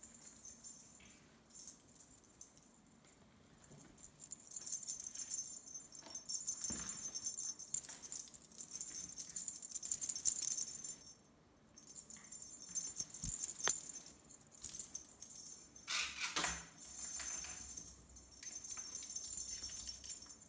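Light metallic jingling of small bells or metal pieces, coming in shaken bouts that stop and start, with a short pause about halfway through and a few soft knocks.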